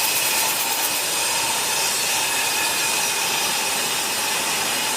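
Steady machinery noise: an even, continuous din with a faint steady whine through it.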